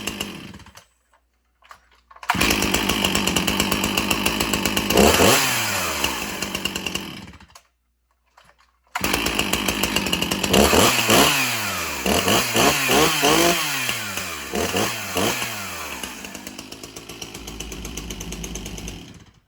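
A Stihl two-stroke chainsaw running and being revved in quick throttle blips that rise and fall in pitch, dropping back to idle between them. The sound cuts out abruptly twice and comes back already running, and near the end it settles to a steadier idle before stopping suddenly.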